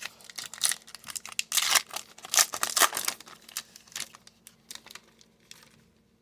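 Hockey card pack wrapper being torn open and crinkled in the hands. A busy run of sharp crackles, loudest in the middle, thinning out near the end.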